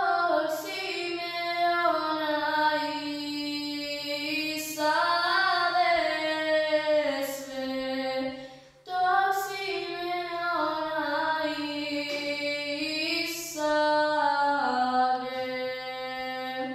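A young girl singing a Serbian folk song unaccompanied, in long held notes that waver and bend. She sings two long phrases and breaks for breath about nine seconds in.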